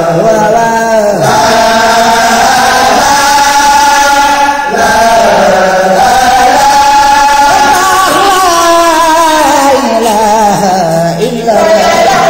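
Baye Fall zikr, a Sufi devotional chant, sung in long held notes that glide slowly in pitch, with a long falling phrase in the second half.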